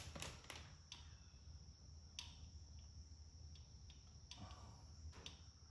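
Faint, scattered light clicks and taps of small metal tools against metal, as a magnet and pick are worked inside a tractor's gear case to get at the governor springs.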